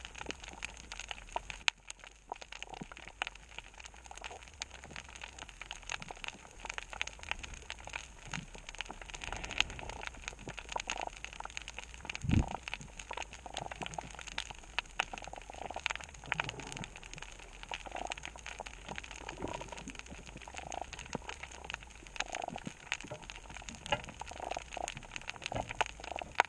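Dense crackling of snapping shrimp heard underwater: a steady patter of countless tiny clicks, with one short low thump about halfway through.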